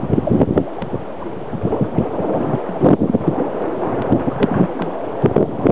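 Strong gusty wind buffeting the microphone in an uneven, fluttering rumble, over choppy wind-driven floodwater sloshing and lapping.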